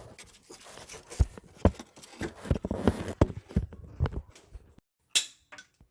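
Irregular knocks and clatter of hand tools at work, about a dozen uneven strikes, ending in a brief scraping noise near the end.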